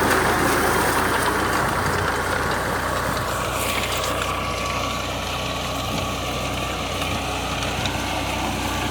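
Tractor engine running steadily under a potato harvester, with a higher rushing noise that fades away about three and a half seconds in.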